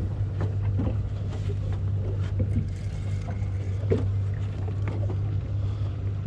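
Charter fishing boat's engine running steadily with a low hum, with scattered light knocks and clicks over it.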